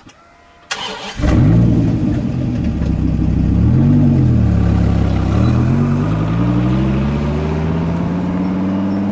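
Dodge Viper's V10 engine starting: a short crank, then it fires about a second in and runs, with one brief rev a few seconds in. From about halfway its pitch rises steadily as the car pulls away.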